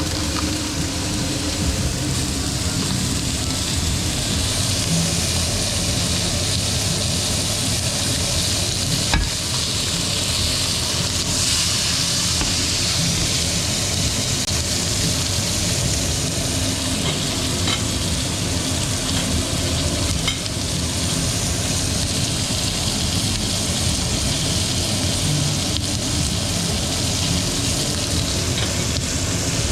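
A thick bone-in chuletón steak sizzling steadily in a hot pan, with a few faint pops and one sharp tap about nine seconds in.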